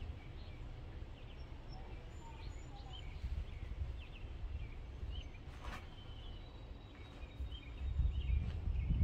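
Small birds chirping now and then over a steady low rumble of wind on the microphone, which grows stronger near the end. A single sharp click a little past halfway.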